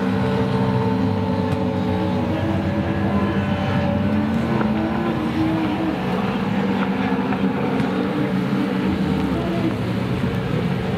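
Several racing jet skis running at high revs at once, with steady engine tones and a spray-and-water hiss. Near the end, engine pitch wavers up and down as the craft turn around buoys.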